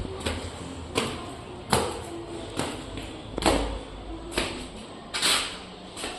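A series of sharp knocks and thuds, about one a second, some louder than others.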